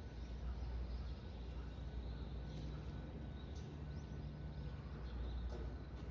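Quiet outdoor background: a steady low rumble with a few faint, short bird chirps now and then.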